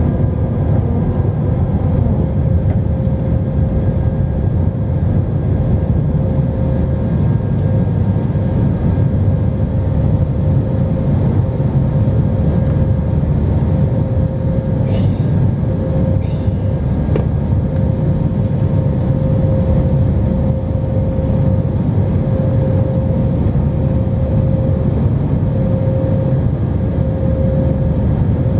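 Airbus A319 cabin noise in the climb after take-off: a steady rumble of the jet engines and airflow, with a steady whining tone running over it.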